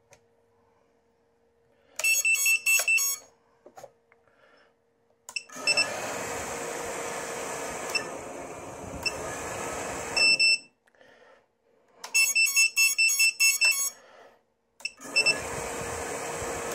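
Rapid runs of high electronic beeps, then the brushless motors of a small FPV racing quadcopter, propellers off, spinning up and running steadily for about five seconds. The pattern comes round again: a second run of beeps about twelve seconds in, and the motors start again near the end.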